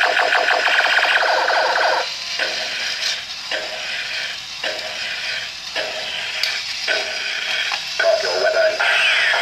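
Battery-powered Millennium toy robot walking: its electronic sound effects come from its small speaker in short blocks that start and stop sharply. A fast mechanical rattle runs under the first couple of seconds, from its walking gearbox, which has a replacement inner gear.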